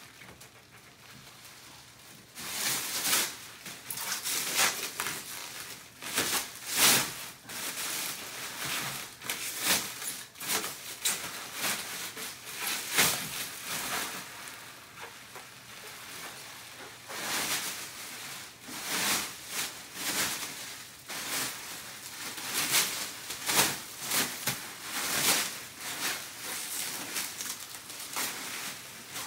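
Thin plastic mattress wrapping crinkling and rustling in irregular bursts as it is pulled and bunched off a rolled-up mattress, starting a couple of seconds in.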